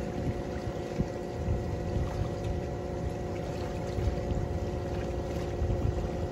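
A boat's motor running steadily as the boat cruises along the channel, with uneven low wind buffeting on the microphone.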